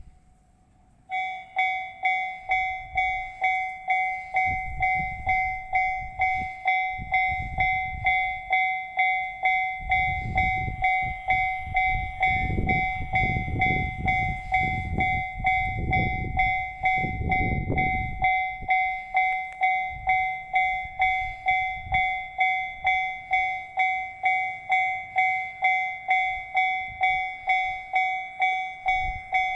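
Japanese railway level-crossing alarm in the JR standard electronic tone, starting about a second in and ringing steadily with its clanging beat just under twice a second. Through the middle a train rumbles past, loudest a little after the halfway point.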